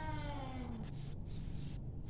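Cat yowling in a fight: one drawn-out call that rises and falls in pitch and stops just under a second in, with a brief high chirp near its end, over a steady low hum.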